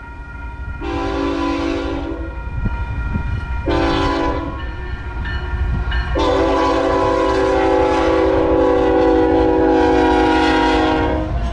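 BNSF diesel locomotive's multi-chime air horn sounding for a grade crossing: three blasts, two shorter ones and then a long one of about five seconds, over the low rumble of the approaching locomotives.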